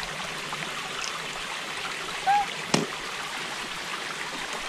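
Shallow creek water trickling steadily over rocks. About two seconds in there is a brief voice sound, and just after it a single sharp tap.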